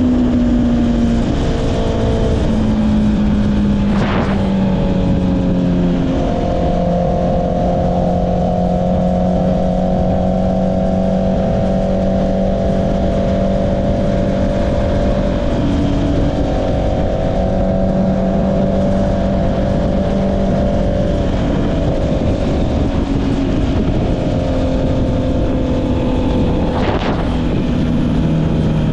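Honda CB650R's inline-four engine through an Akrapovic exhaust while riding. The engine note steps down in pitch a few times in the first several seconds as the bike shifts up, holds a steady cruise through the middle, and drops again near the end. Wind noise rushes on the microphone underneath.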